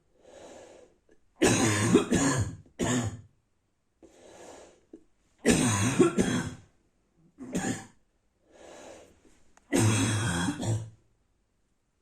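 A person's dry, barking cough from a bad cold, in three rounds: each time a drawn breath in, then a burst of several harsh coughs.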